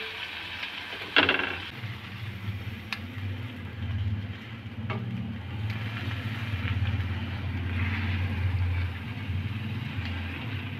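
Food sizzling on a griddle pan, with one sharp metal clink of a utensil against the pan about a second in and a couple of lighter taps after. A steady low hum runs underneath from just after the clink.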